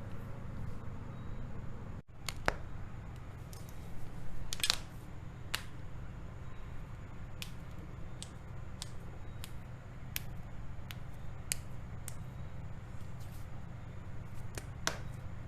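Joints cracking during a home chiropractic-style manipulation: a run of single sharp pops, a little more than one a second, beginning about two and a half seconds in, over a steady low hum.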